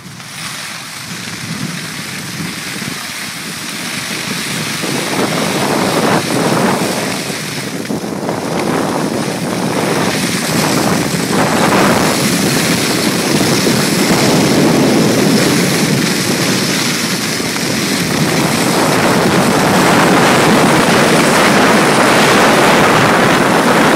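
Wind rushing over the microphone mixed with skis scraping across packed, groomed snow while skiing downhill. It grows steadily louder as speed builds, with uneven scrapes from about six to twelve seconds in.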